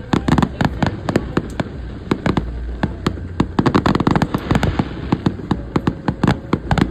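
Fireworks going off in a rapid, irregular string of sharp bangs and crackles, several a second, over a low steady rumble.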